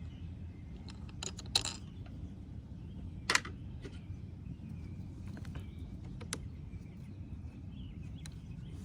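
Scattered light clicks and metallic knocks from handling tools and hardware, the two loudest about one and a half and three seconds in, over a steady low outdoor rumble.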